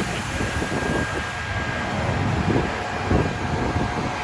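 Gusty wind buffeting the microphone over a steady rumble of street noise, with a faint steady whine throughout.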